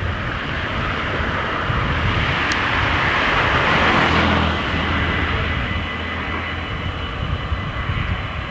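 A car passes close by, its tyre and engine noise swelling to a peak about four seconds in and then fading. From about five seconds, the level crossing's warning bells ring steadily as the barriers begin to lower.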